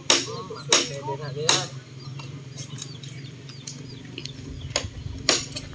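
Sharp cracking strikes of a blade chopping at a bamboo pole: three near the start, a pause, then a quicker few near the end.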